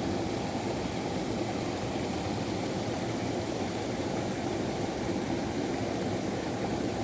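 River water rushing steadily, a constant even noise with no breaks.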